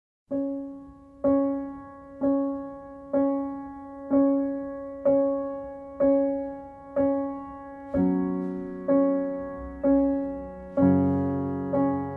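Slow background piano music: one note struck about once a second, each fading away, with lower notes joining in about eight seconds in and a fuller low chord near the end.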